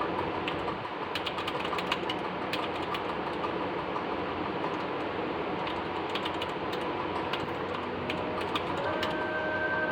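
Keys being pressed on a Cosmic Byte GK-18 Firefly mechanical keyboard with Outemu Red switches: scattered key clacks in two short runs, over a steady background hiss.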